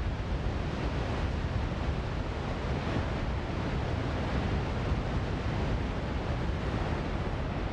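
Ocean surf breaking on a beach: a steady wash of waves with no distinct single crashes.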